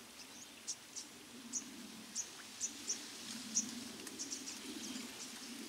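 Rural outdoor ambience: many short, high chirps from small wildlife come at irregular intervals, over a faint, low, wavering hum.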